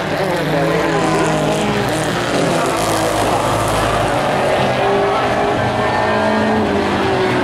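Several race trucks' engines running together on a short oval, their pitches rising and falling as they accelerate, lift and pass.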